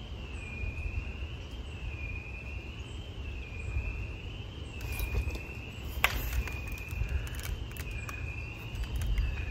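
A steady high-pitched insect drone, its pitch swaying up and down about once a second, over a low wind rumble on the microphone; a single sharp click about six seconds in.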